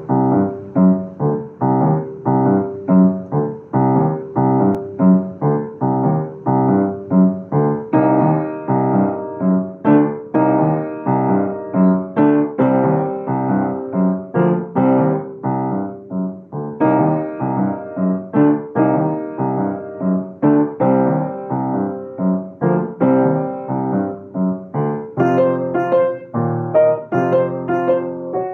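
Upright piano played solo: a steady, rhythmic piece of struck notes and chords with a clear pulse, its higher notes coming in more near the end.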